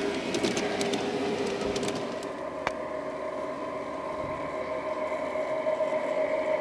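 LGB garden-railway model train of a Ge 4/4 I electric locomotive running on track. Quick clicking of wheels over the rails as the carriages pass, then after a sharp click a steady motor hum with a few pitched tones that grows louder as the locomotive approaches.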